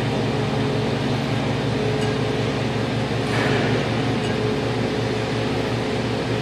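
Toshiba TMD-13 CNC vertical boring mill running with its table spinning: a steady mechanical hum with a constant whine under it, and a brief airy hiss about three seconds in.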